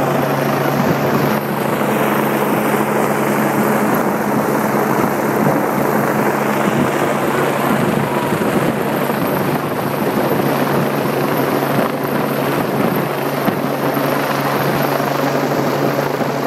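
Rescue helicopter hovering overhead, its rotor and engine running steadily: a constant low hum under a loud rushing noise.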